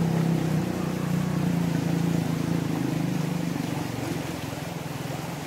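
A small engine running steadily: a low hum that eases off slightly near the end.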